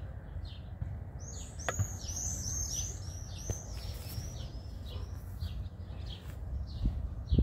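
A small bird chirping over and over in short, high chirps, coming quicker and louder for a couple of seconds from about a second in, over a steady low rumble.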